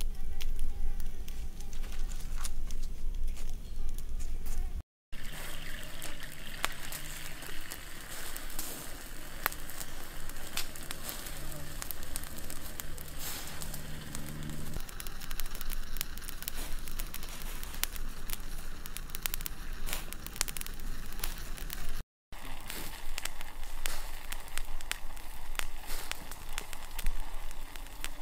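Wood fire crackling with many sharp pops and clicks. From about five seconds in, a fly buzzes steadily for roughly ten seconds. There is a low rumble during the first few seconds, and the sound drops out briefly twice.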